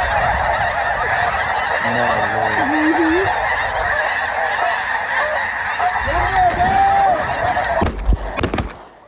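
A huge flock of snow geese calling all at once, a dense, continuous wall of honking and yelping as the flock comes down overhead. The chorus breaks off about eight seconds in, followed by a few knocks.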